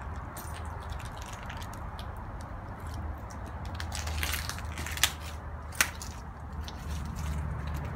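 Footsteps crunching over dry leaves and broken debris, with two sharper cracks about five and six seconds in.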